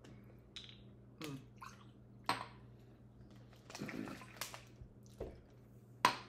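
Handling noises of a plastic water bottle and small glasses on a granite countertop: a handful of short clicks and knocks, with a sharp clink of a glass set down near the end. Water is swished in the mouth in between, over a faint steady hum.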